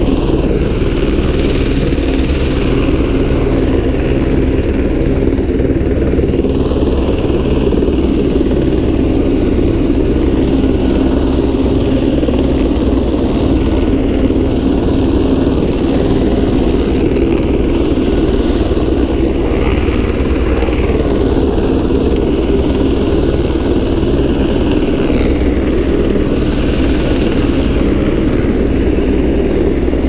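Helicopter engine and rotor running steadily, a loud unbroken drone.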